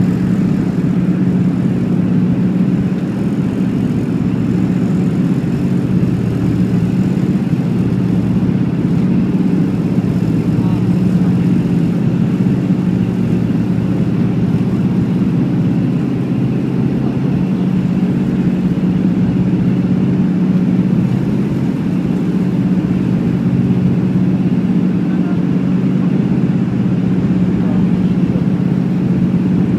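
Steady drone of the Lockheed L-1049 Super Constellation's four Wright R-3350 radial piston engines and propellers in cruise, heard from inside the cabin as a loud, even hum.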